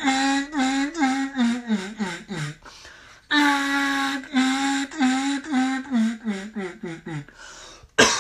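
Duck call blown as a hail call (high ball): long runs of loud, rapid notes, about three a second, each run starting high and tapering down in pitch. There are two runs with a short break between them, and a brief sharp sound at the very end. It is a long-range attention call meant to turn ducks far out on open water or fields.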